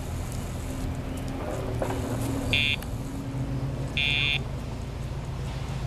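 Two short electronic beeps from a remote dog-training collar, about a second and a half apart, the second a little longer, with a steady low engine drone underneath.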